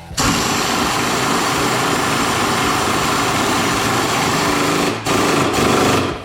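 Power tool running steadily for about five seconds, stopping briefly, then running again for about a second.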